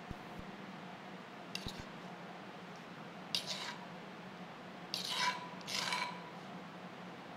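A spoon scraping thick chili-garlic sauce out of a bowl: four short scrapes, the last three louder and close together.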